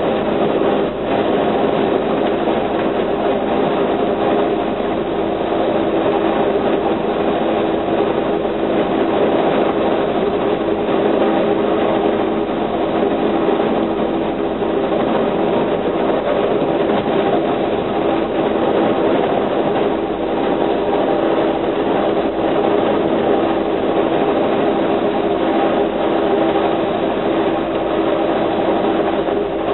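Steady running noise of an Amtrak Empire Builder passenger train, heard from inside the car as it rolls along at speed, with a few faint clicks.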